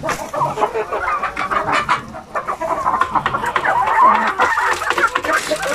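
A flock of Sampin native chickens, hens and a rooster, clucking over and over while they crowd a hanging feeder at feeding time, with scattered short clicks among the calls.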